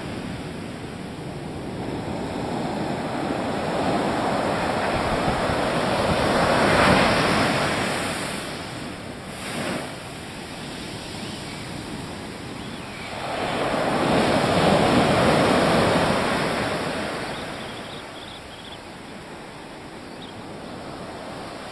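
Ocean surf breaking and washing up a sandy beach, swelling loudly twice, about seven seconds in and again from about thirteen to sixteen seconds, and easing off between and near the end.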